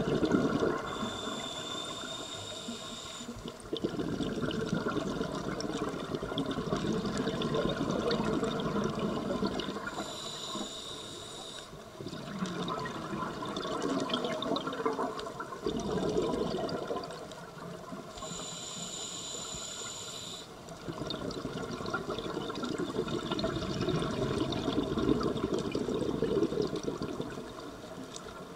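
A scuba regulator breathing underwater: three short hissing inhalations with a thin whistle, each followed by several seconds of bubbling exhaust from the exhalation.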